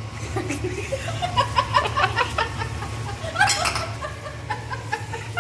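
A woman laughing in short, rapidly repeated bursts.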